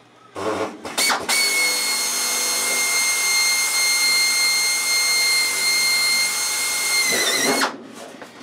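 Pneumatic air drill fitted with a number 40 bit, drilling through thin aluminum wing skin. It starts with a brief stutter, then runs as a steady high whine for about six seconds, dips slightly in pitch and stops.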